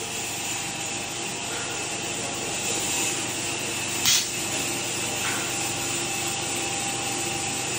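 Motor-driven wood-turning lathe running steadily as two pneumatically pressed sanding wheels sand a spinning turned wooden spindle. A short hiss about four seconds in.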